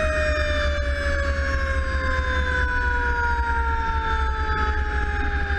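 Seagrave fire engine's siren sounding one long tone that slides slowly and steadily down in pitch, over a steady low rumble from the moving truck.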